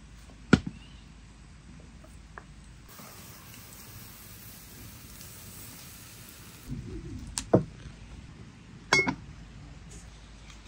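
Aluminium cooking pot and its lid knocking and clanking as the pot is lifted off the stove, carried and set down: a sharp clank about half a second in, a few thuds and two clanks a little past the middle, and a ringing clink near the end.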